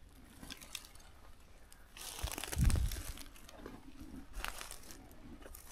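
Footsteps crunching and rustling through dry fallen leaves, in uneven steps, with a heavier crunch and a low thud about two and a half seconds in.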